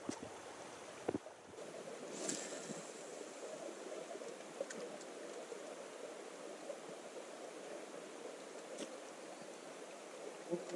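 Steady rushing of flowing river water. In the first second there are a couple of sharp knocks from a dog's feet on the stones.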